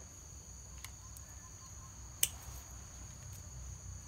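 Insects chirring steadily at a high pitch, with one sharp snip about two seconds in and a fainter click earlier, from scissors clipping leaves off a bonsai.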